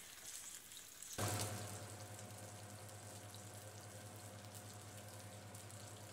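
Sausages sizzling faintly in oil in a frying pan, cooking slowly over low heat. About a second in, a steady low hum joins the sizzle and carries on under it.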